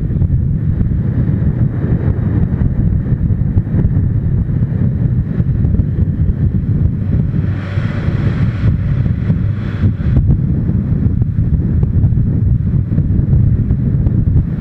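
Wind buffeting the microphone of a motorcycle-mounted camera at riding speed: a steady low rumble, with a higher hiss for about two seconds in the middle.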